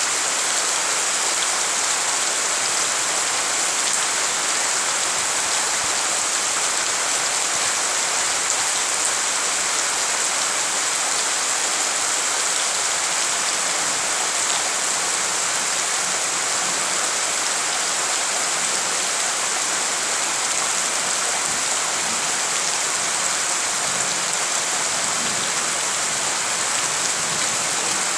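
Heavy rain pouring onto puddled ground, a dense, steady hiss with no let-up.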